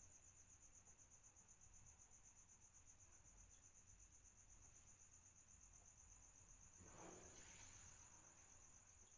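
Near silence with a faint, steady cricket trill, a high pulsing chirp that runs on without a break. A brief soft rush of noise comes about seven seconds in.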